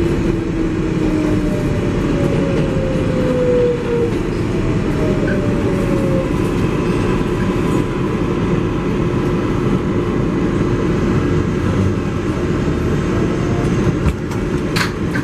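Inside an R188 subway car on the 7 train: steady rumble and hiss of the train, with whines falling in pitch during the first few seconds and a faint steady hum after. A sharp click comes near the end.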